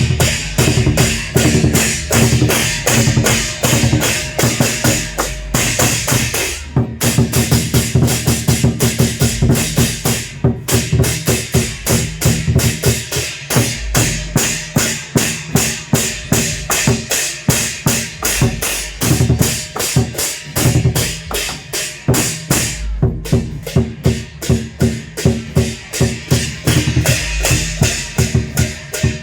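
Loud electronic dance music played through a large parade sound system, with heavy bass and a fast, steady drumbeat. The beat drops out briefly three times, about 7, 10 and 23 seconds in.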